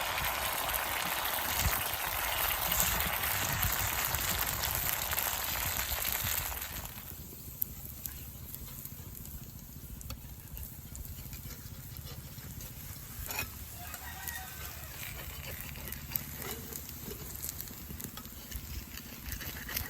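Mullu murungai adai sizzling in oil on a hot pan, a dense steady frying hiss that cuts off abruptly about seven seconds in, leaving a much quieter background with a single click later on.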